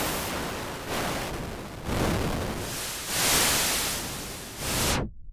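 Software synthesizer's noise oscillator played as a run of notes: each a burst of full-range hiss that swells and fades over about a second. About five seconds in, the top of the hiss cuts off suddenly as the noise generator's cutoff is turned down.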